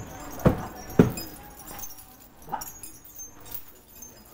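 Heavy iron chain on a walking elephant clanking and jangling against the concrete as it steps: two loud clanks about half a second apart near the start, then quieter clinks.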